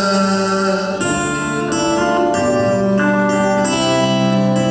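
Live band playing an instrumental passage between sung lines: acoustic guitar with keyboard, held chords changing every second or so.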